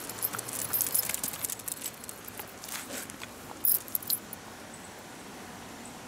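Shiba Inus crowding close while being petted, with a flurry of light clicks and jingles that dies away after about four seconds.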